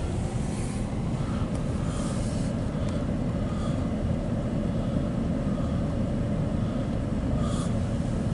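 Loaded autorack freight train rolling past the crossing, a steady low rumble heard from inside a car, with faint short clicks here and there.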